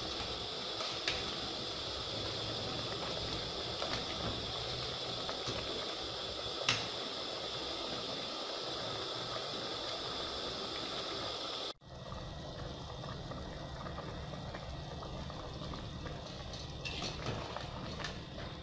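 Pot of pork and bamboo-shoot stew simmering on a gas burner, a steady hiss, with a few sharp knocks of the ladle against the pot. The sound cuts off for an instant about twelve seconds in, and the hiss comes back duller.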